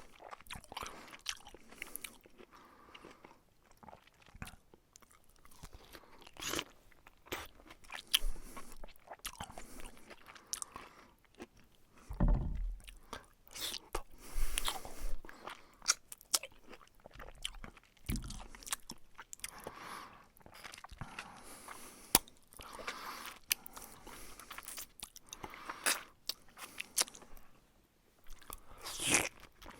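A person eating in close-up: irregular biting and chewing, heard as a string of short, sharp crunches at an uneven pace, with a few louder ones along the way.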